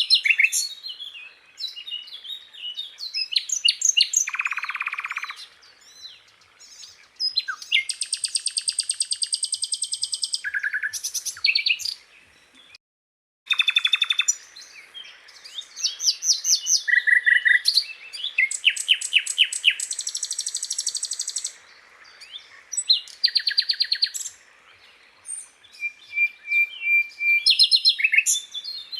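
Sikatan londo (a flycatcher) singing a long, varied song of rapid chattering trills, buzzy rattling phrases and short clear whistles, one after another with brief pauses. About 13 seconds in the sound cuts out completely for a moment.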